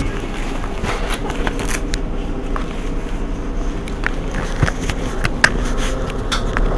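Mercedes-Benz Citaro G articulated city bus standing with its engine idling, a steady low hum, with scattered sharp clicks throughout.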